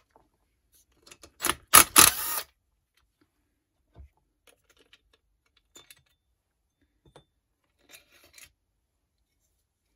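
Hand tools and small metal parts clattering and scraping as the exhaust muffler is taken off a Stihl MS170 chainsaw. A quick run of sharp clatters comes about one to two and a half seconds in, followed by scattered faint clicks.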